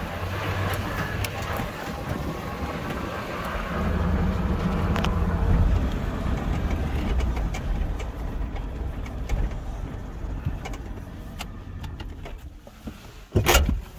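Vehicle driving slowly on a rough dirt track: a steady low rumble of engine and tyres with small knocks and rattles, easing off toward the end as it slows. A single loud thump comes near the end.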